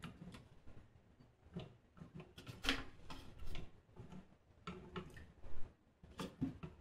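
Irregular small metallic clicks and scrapes of an L-shaped hex key turning a screw into an airsoft AK's metal receiver, with a louder click just before the middle and another near the end.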